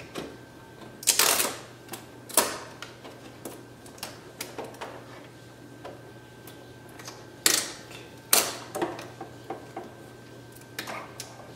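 Sharp clicks and snaps of hard plastic as a plastic bar and tube bracket for the ink-supply tubing are fitted inside an open inkjet printer. About five loud clicks come at irregular intervals, with lighter ticks and rattles between them.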